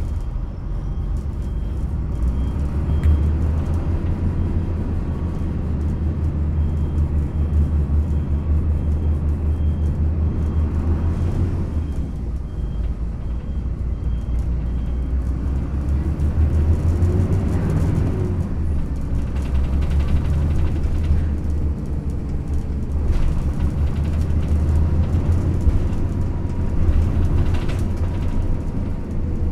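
Cabin sound of a Yutong ZK6128HG low-floor city bus under way: its engine runs with a deep rumble under road noise, and the engine note climbs and then falls a little past halfway. The body resonates over uneven pavement, a known trait of this bus.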